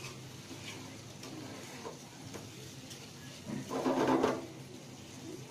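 A metal frying pan being moved and stirred on a gas stove's grate: a brief scraping clatter about three and a half seconds in, over a faint steady kitchen background with a few light ticks.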